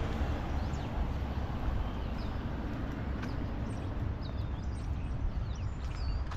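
Wind buffeting the microphone as a steady low rumble, with small birds giving short high chirps several times, more often in the second half.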